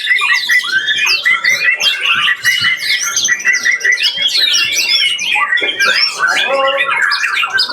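Many songbirds singing at once: a dense, loud tangle of overlapping whistles, trills and chirps, with a fast repeated note running through the first half. Lower calls join in about six seconds in.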